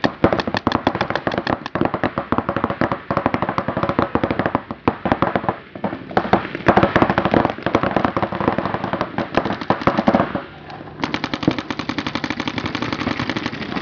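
Paintball markers firing in rapid strings of shots, many per second and overlapping. The firing eases briefly about ten seconds in, then an evenly spaced string resumes.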